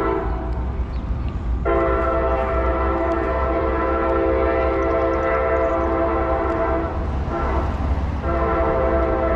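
Locomotive air horn sounding a chord of several notes in long blasts: one cuts off just after the start, a long blast of about five seconds follows, then a short break and another blast near the end. A low rumble runs underneath.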